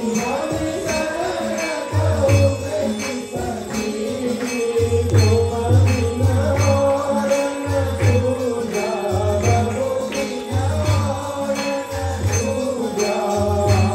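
Hindu temple aarti music: bells ringing continuously over a held melody, with a regular low beat.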